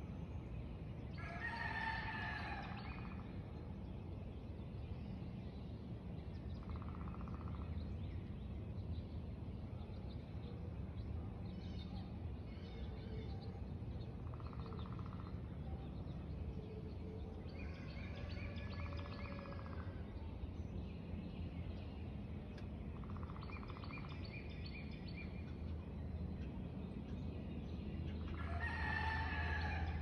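Roosters crowing three times: about a second in, midway and near the end, each crow lasting a second or two. Fainter bird calls come in between, over a steady low rumble.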